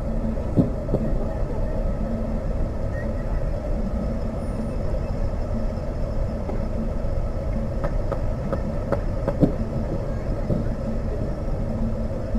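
Steady outdoor rumble with a low hum, broken by a few short thumps, the clearest about half a second in and again a little past nine seconds.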